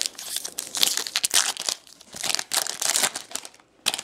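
Foil wrapper of a Bowman Chrome baseball card pack crinkling as it is torn open and pulled off the cards, in several crackly bursts with a short last one near the end.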